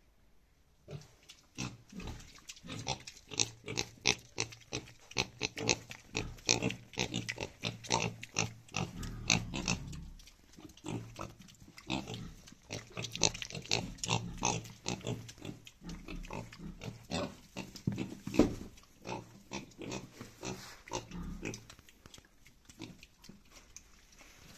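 Hybrid piglets grunting, many short grunts in quick succession that start about a second in and thin out near the end.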